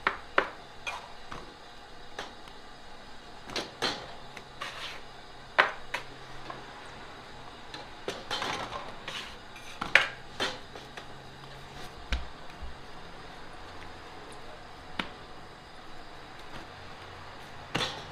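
Irregular sharp clacks and knocks of a baker dividing bread dough by hand: a metal bench scraper striking the bench and dough portions landing in the metal pans of a balance scale. A low steady hum runs underneath.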